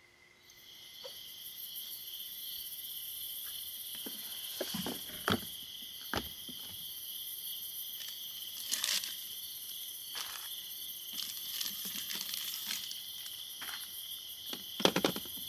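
Night insects chirping in a steady chorus, with intermittent clunks and plastic rustling as a cooler is rummaged through and a bagged package is set on a truck tailgate.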